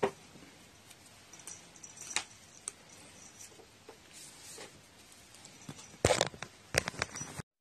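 Light clicks and taps of a thin wooden stick toy as a cat bats at it with its paw, the sharpest click right at the start. About six seconds in, a short spell of louder scuffing and rustling as the cat moves about on the cushioned seat.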